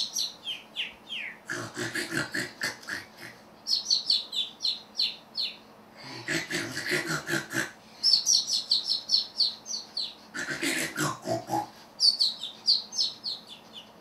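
Animatronic parrot's comic snoring, played through its speaker: rough, pig-like snorting inhales alternate with runs of quick, falling, whistled bird chirps, in a cycle repeating about every four seconds.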